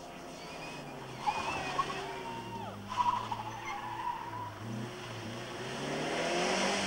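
Rally car engine running hard and growing louder as the car approaches and drives past. Short high tyre squeals come in the first few seconds.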